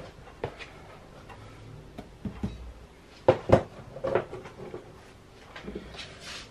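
Scattered clicks and knocks of kitchen utensils against a stainless steel saucepan, with two louder knocks about three and a half seconds in. Near the end comes a short scraping rustle as a wooden spoon starts stirring semolina into the fufu.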